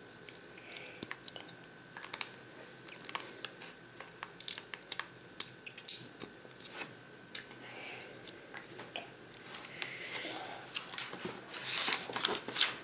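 Plastic Lego bricks clicking and snapping as they are pressed together and handled in the fingers, a scatter of small sharp clicks and taps that grows into a busier clatter near the end.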